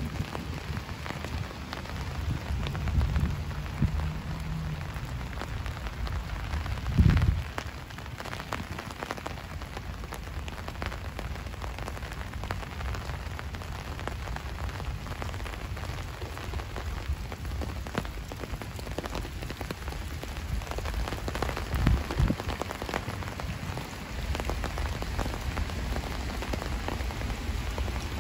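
Steady rain falling, with many small drop ticks through it and a few low thuds, the loudest about seven seconds in.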